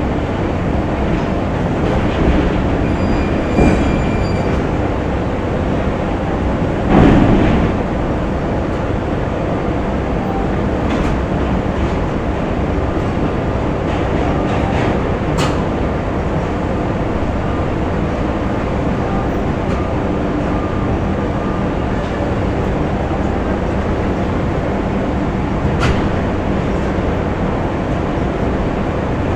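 Factory ambience: a steady, dense machine rumble and hum, with a few sharp clanks here and there and a louder surge about seven seconds in.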